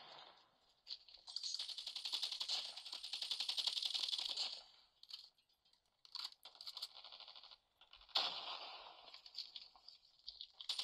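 Mobile first-person shooter game audio: bursts of rapid automatic gunfire. A long burst starts about a second in, a few short bursts follow in the middle, and another burst starts sharply about eight seconds in.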